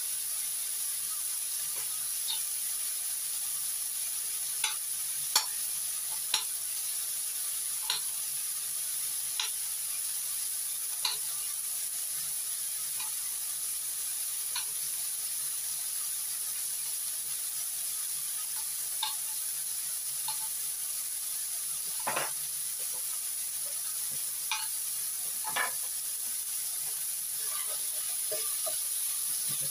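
Sliced pork, pork sausage and garlic frying in oil in a nonstick pan: a steady sizzle with scattered pops and crackles of spitting fat. Near the end the pieces are stirred in the pan.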